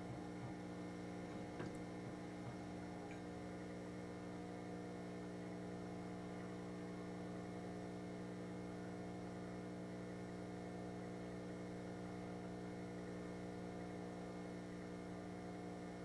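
Steady electrical hum, a stack of even low tones that does not change, with one faint tick about two seconds in.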